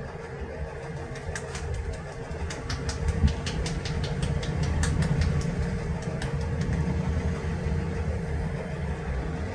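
A steady low rumble like an idling engine or traffic, with a quick run of sharp taps about a second in that stops around six seconds in.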